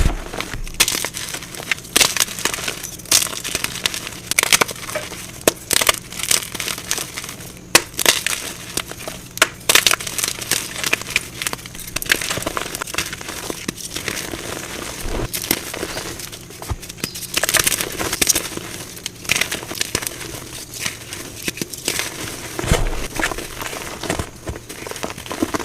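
Blocks of dyed gym chalk being crushed, a dense run of irregular crisp crunches and crumbling crackles as the chalk breaks apart.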